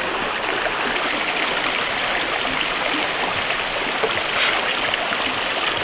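A rocky stream rushing steadily over stones, an even wash of running water.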